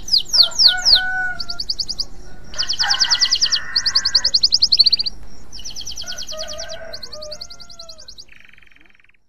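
Male domestic canary in breeding condition singing: a run of rapid, high trills, each phrase a fast string of repeated notes that switches to a new phrase every second or so, fading away near the end.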